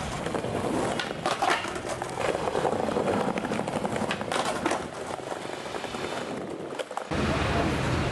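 Skateboard wheels rolling on paving tiles, with sharp clacks of the board about a second in and again about four and a half seconds in. Near the end it cuts abruptly to steady street noise with a low hum.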